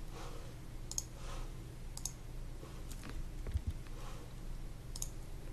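Four faint, sharp computer mouse clicks, a second or two apart, over a low steady hum.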